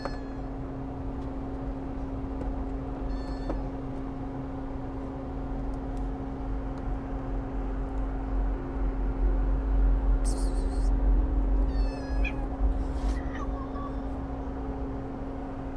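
Kitten meowing a few times in short, high cries, with a couple of brief hisses in the second half, over a steady low hum.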